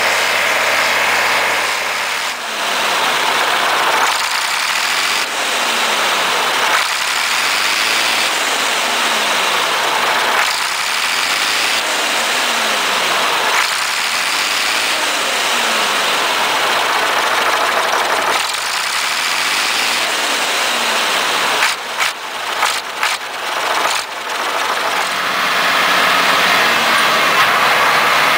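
Diesel engine of an old Bray wheel loader running, its sound swelling and sweeping up and down in pitch about every three seconds. A quick run of knocks and bumps comes about three-quarters of the way through.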